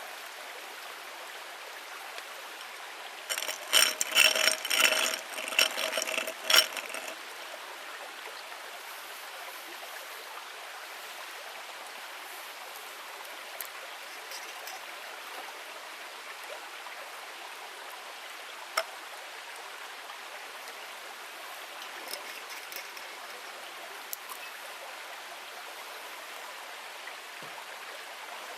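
Steady rushing background like running water. About three seconds in comes a flurry of ringing clinks lasting some three seconds, and a few single sharp snaps follow later.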